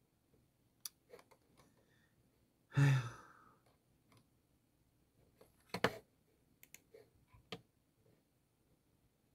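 A man's audible sigh, a breathy exhale with a little voice in it, about three seconds in, with a few light, sharp clicks scattered before and after.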